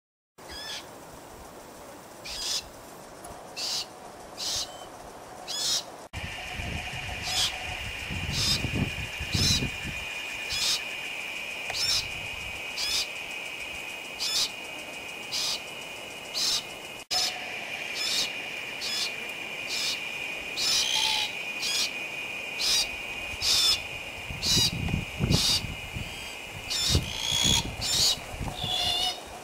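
Female glossy black cockatoo giving short, repeated calls about once a second, over a steady high-pitched hum. Low rumbles come and go twice.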